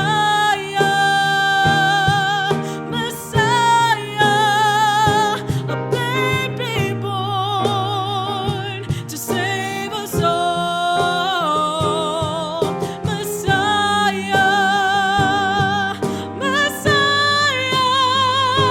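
Worship song: a voice singing long held notes with vibrato over instrumental accompaniment with a steady bass.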